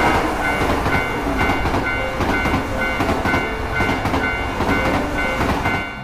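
Sound effect of an electric commuter train passing a level crossing: a steady rushing rumble of the train going by, with the crossing's warning bell dinging in a fast, even rhythm over it. It cuts off at the end as the train clears.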